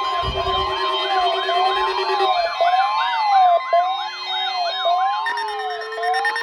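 Weather radio receivers' electronic alarms going off together during a weekly warning-alarm test, with the steady 1050 Hz NOAA Weather Radio alarm tone underneath. Repeating siren-like wails and fast yelping sweeps overlap; a pulsing beep stops about two seconds in, and a slowly rising tone begins about four seconds in.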